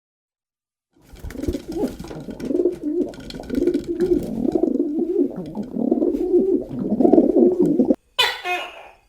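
Pigeons cooing in a continuous low, warbling murmur for about seven seconds, starting about a second in. Near the end a short, higher animal call follows.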